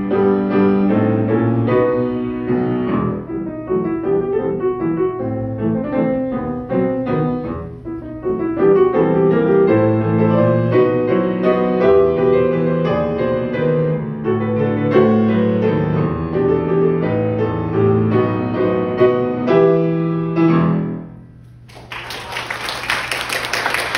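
Grand piano played solo, a dense stream of notes and chords that ends on a final chord about 21 seconds in. An audience then applauds.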